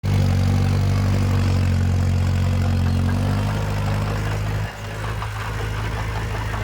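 Heavy earthmoving machine's engine running at a steady, low note. About two-thirds of the way through it dips suddenly, then carries on more quietly.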